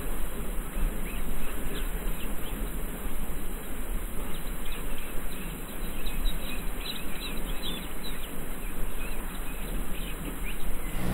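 Outdoor rural ambience: many small birds chirping in short, scattered calls over a steady low rumble.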